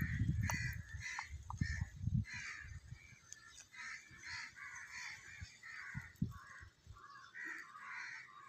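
Crows cawing repeatedly. A small metal spoon stirs and knocks in a miniature clay pot during the first two seconds.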